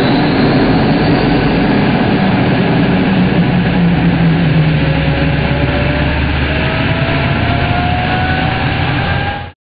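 F-22 Raptor's auxiliary power unit, a miniature jet turbine, starting up and running: a loud steady rush with a low hum and a whine that rises slowly in pitch over the second half. It cuts off suddenly near the end.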